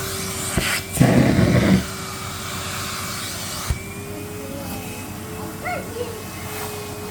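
Vacuum cleaner running with a steady hum, a loud rough burst of noise about a second in, and a few short squeaky chirps near the end.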